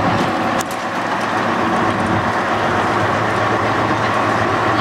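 AEC Regal IV RF bus's underfloor diesel engine running steadily while the bus is under way, heard from inside the cab with road noise; a single sharp knock about half a second in.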